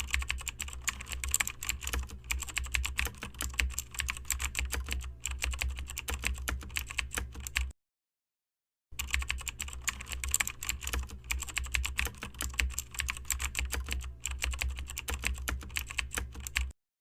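Rapid, dense clicking over a low hum, in two runs of about eight seconds, each cut off suddenly into silence.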